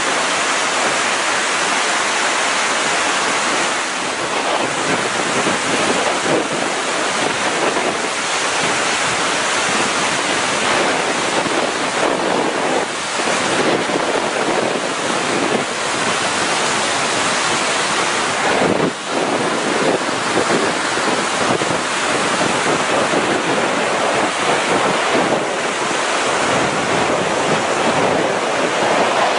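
Floodwater rushing steadily: a loud, unbroken wash of water noise.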